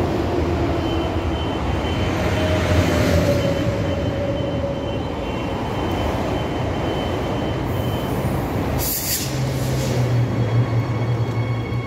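Transperth electric train standing at the platform with its onboard equipment running steadily. About nine seconds in there is a short hiss, and a low steady hum sets in right after it.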